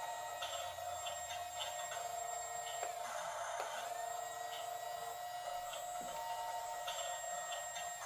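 Small electric motors of a toy RC bulldozer whining steadily as it is worked from the transmitter, with a few brief dips in pitch and faint clicks.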